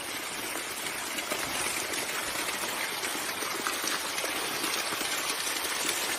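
Rushing water of a stream, a steady even hiss.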